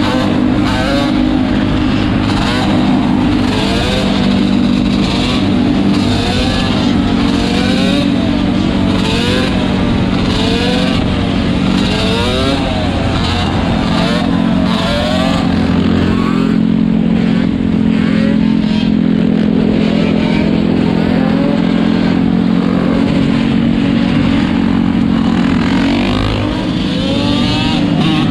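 Four-wheeler (ATV) engines revving again and again in quick up-and-down throttle blips over a steady, loud engine drone; the revving thins out about halfway through and picks up again near the end.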